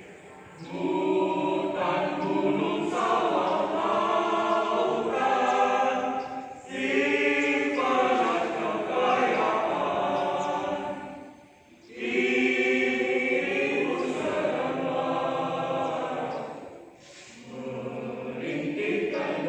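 Group of marching-team members singing a chant together in unison, in long held phrases with three short breaks.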